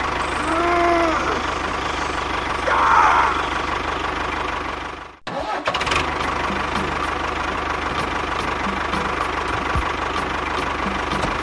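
Tractor engine running steadily, with a short rising-and-falling call near the start. The engine sound cuts out for a moment about five seconds in, then carries on.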